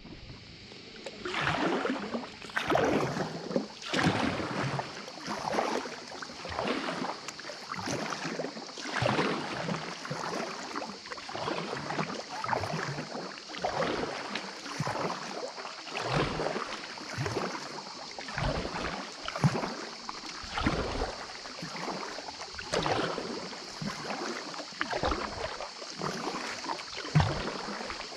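Kayak paddle strokes: the blades of a double-bladed paddle dip and pull through calm water, one after the other, about once a second.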